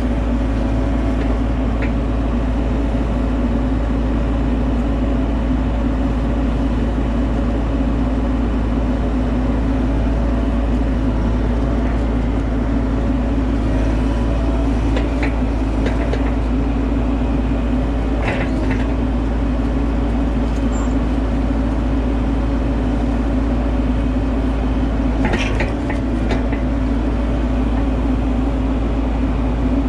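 Bobcat E42 mini excavator's diesel engine running steadily at working throttle while the machine pulls autumn olive brush. A few short sharp cracks come about halfway through and again about three-quarters of the way in.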